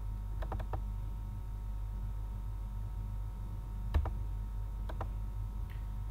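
Computer mouse clicks: a quick cluster about half a second in, a sharper single click at about four seconds, and a pair near five seconds, over a steady low electrical hum.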